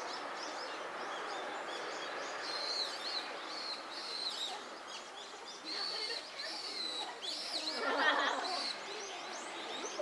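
Wild songbirds chirping and calling over and over among the cherry trees, with a louder burst of calls about eight seconds in.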